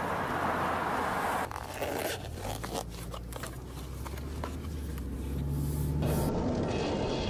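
Zipper on a fabric case being pulled in short scratchy strokes, over a steady low hum. The first second and a half is a rushing, wind-like noise.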